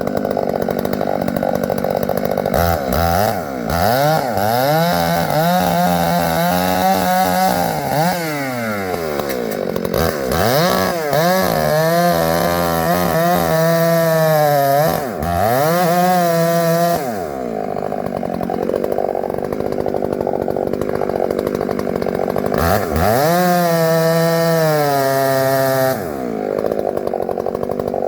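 Two-stroke chainsaw running hard while cutting poplar wood. Its engine pitch repeatedly sags and climbs again as the chain loads up in the cut and frees.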